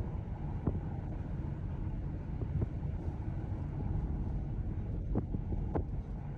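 Steady low rumbling noise with a few faint, brief knocks.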